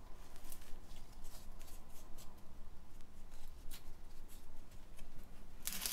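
Soft, irregular rustling and scraping as hands firm potting compost around a begonia in a plastic pot and handle its leaves, with a louder rustle just before the end.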